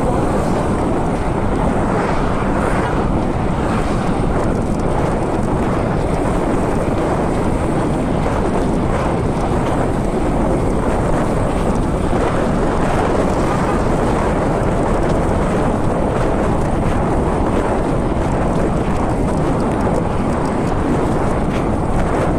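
Wind buffeting the microphone of a camera riding on a moving mountain bike: a steady, loud rush of noise, heaviest in the low end, with no let-up.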